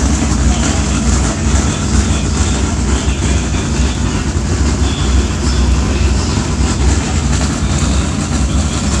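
Steady low engine rumble under a loud, even rushing noise, with no rise or fall in pitch.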